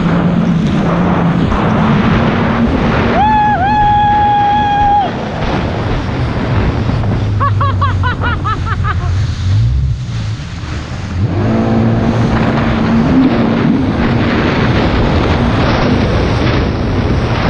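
Jet ski engine running at speed, with water spray and the hull slapping through the waves. The engine eases off briefly about five seconds in and again about ten seconds in, then picks back up. Short high tones cut through twice in the first half.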